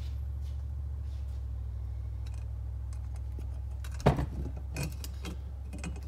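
Metal parts of a Hurst short-throw shifter assembly being handled and fitted together: a sharp clack about four seconds in, then a few lighter clicks and rattles, over a steady low hum.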